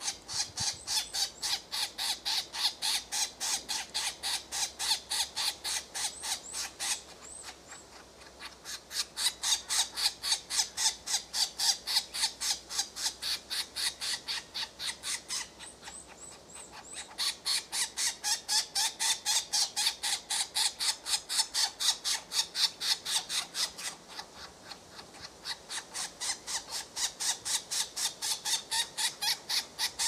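European green woodpecker nestlings begging for food at the nest hole: a fast, even series of short harsh calls, about three to four a second, in long bouts that break off briefly three times.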